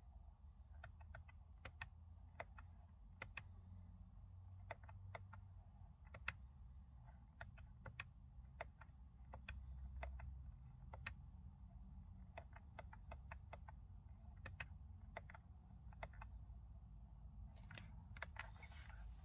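Steering-wheel control buttons clicking as the instrument-cluster menu is scrolled: faint, irregular single clicks, one or two a second, with a short rustle near the end.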